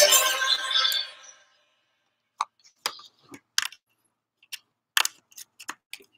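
Background music fading out in the first second or so, then about ten irregular, sharp clicks of a computer mouse and keyboard being worked.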